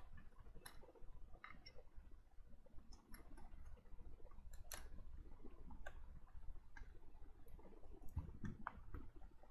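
Faint, scattered clicks and taps of a power supply's circuit board and sheet-metal case being handled and fitted together by hand, the sharpest click about halfway through.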